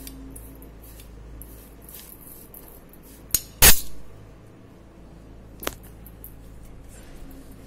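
A hand rubbing ghee into grated dry coconut and coarse sugar in a stainless steel bowl, making a faint gritty rustle. Sharp knocks against the steel bowl come twice in quick succession about three and a half seconds in, the second the loudest, and once more, softer, near six seconds.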